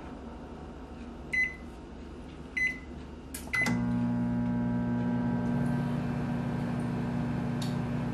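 Panasonic microwave oven: three short keypad beeps about a second apart as the time is entered and started, then the oven starts up and runs with a steady hum.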